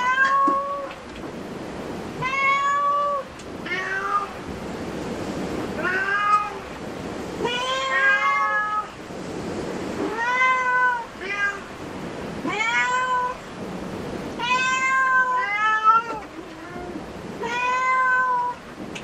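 A domestic cat meowing over and over, about a dozen loud, drawn-out meows, one every second or two, each with a slight rise and fall in pitch.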